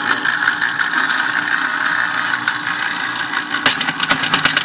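Boston Model 18 electric pencil sharpener running with its cover off: a steady motor whir with a rapid rattle of clicks from the gear train, busier near the end. One gear has broken-off teeth, so at that spot the motor just spins without turning the big gear.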